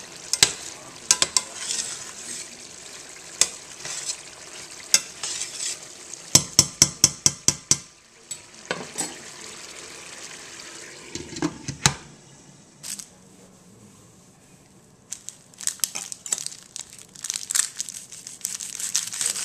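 Beef and chorizo sizzling in a stainless steel pan while a metal utensil scrapes and clinks against the pan, including a quick run of clicks about six seconds in. In the last few seconds, crinkling and knife clicks as dry onion skin is peeled and cut on the counter.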